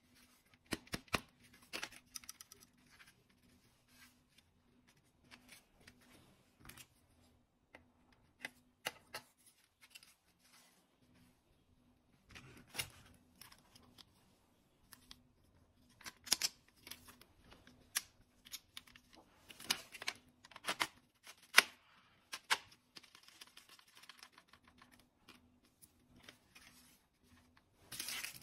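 Hard plastic toy rifle and its scope being handled and fitted together: scattered sharp clicks and knocks, coming thickest in the second half.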